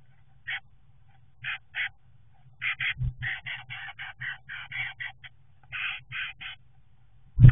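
Great tit working the nesting material inside a wooden nest box: short dry rustles and scratches, singly and in quick runs of several a second, with a dull thump about three seconds in. A faint steady electrical hum lies underneath.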